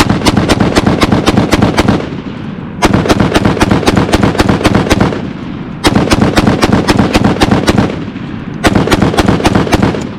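A firearm shooting in long strings of rapid shots, about seven a second. Four strings of two seconds or so each, separated by short pauses.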